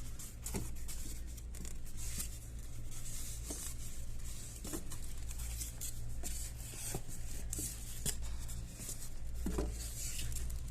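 Printer packaging being handled: rustling and tearing of packing material with scattered light clicks and knocks, over a steady low hum.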